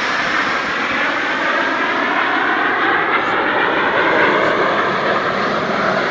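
Jet engines of the Snowbirds' CT-114 Tutor jets flying past in formation, a loud steady jet roar.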